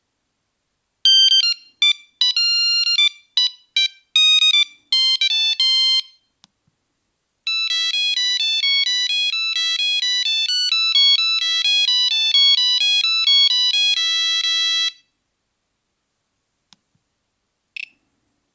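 Nokia 3310 mobile phone playing a monophonic ringtone through its small speaker, one buzzy note at a time. Short, separated phrases come first, then after a pause about six seconds in a fast, unbroken run of notes that stops about fifteen seconds in. Two very short blips follow near the end.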